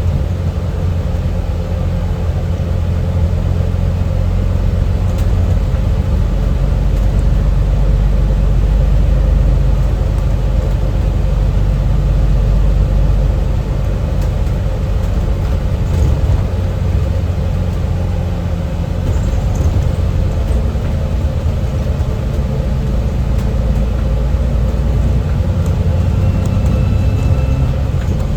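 Alexander Dennis Enviro 400MMC double-decker bus on the move: a steady low engine and road rumble with the hum of the heater fans, which the description says drown out most of the engine sounds.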